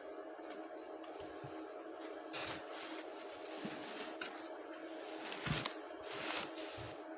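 A few short rustles, about two and a half, five and a half and six and a half seconds in, over a steady hum.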